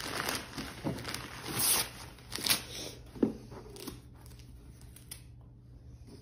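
Wrapping paper rustling, crinkling and tearing as a present is unwrapped by hand, in a run of short bursts that die down about four seconds in.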